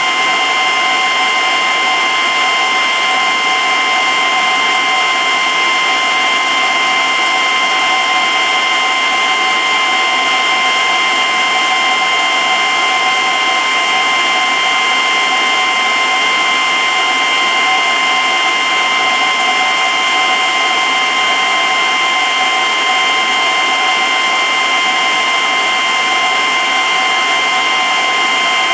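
Aquarium pump and filter running with rushing water: a loud, steady hiss with a constant motor whine over it.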